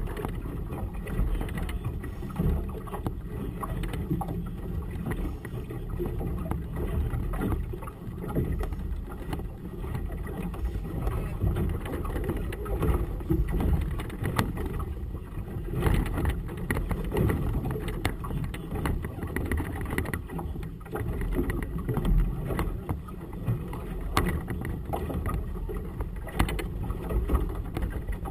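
Gusty wind rumbling on the camera microphone, with choppy water lapping against the hull of a small boat.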